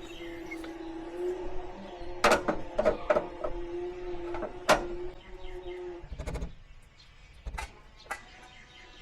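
Sharp metallic clicks and knocks from punching knockout holes in a steel electrical meter box, over a steady hum that stops about six seconds in, followed by a low thump.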